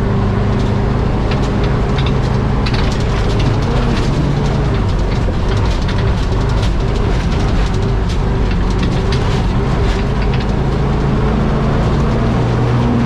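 Old fire truck's engine running under load as it drives over rough ground, its note rising and falling a little, with frequent rattles and knocks from the truck's body bouncing.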